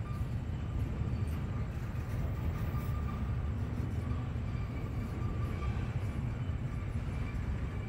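Freight train of container flatcars rolling past: a steady low rumble of steel wheels on the rails, with a faint thin high tone running through it.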